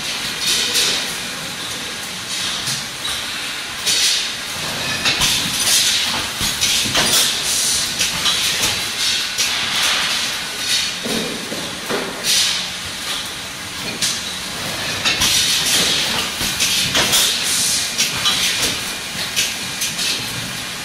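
Packaging line with an HM 4000S servo cross web labeller running: a steady machine noise with a short hiss of air every second or two and scattered clicks.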